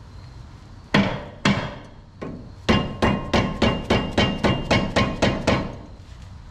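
Hand hammer striking steel front-suspension parts to knock the worn upper ball joint free of the steering knuckle: two single blows, then a fast run of about a dozen ringing metal blows at roughly four a second that stops near the end.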